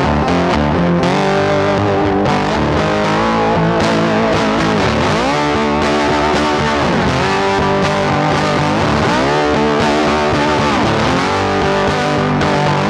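Background music led by distorted electric guitar, playing steadily at an even level.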